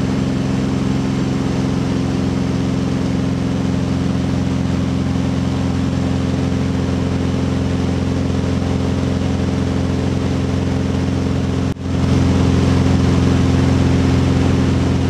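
Continental O-470 flat-six engine and propeller of a Beechcraft Bonanza H35 droning steadily, heard from inside the cabin in flight. It drops out for an instant about twelve seconds in, then carries on slightly louder.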